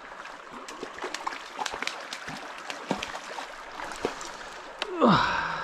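Water splashing and slapping as a hooked brown trout thrashes at the surface of a small stream, with irregular light clicks throughout. A brief louder burst with a falling pitch comes about five seconds in.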